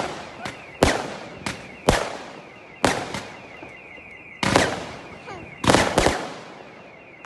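Fireworks exploding: a string of sharp bangs about a second apart, each with a fading tail, two of them close together near the end.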